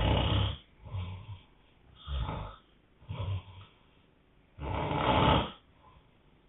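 A man snoring hard, five snores in a row: loud ones at the start and about five seconds in, with three shorter, softer ones between, and quiet breaths in the gaps.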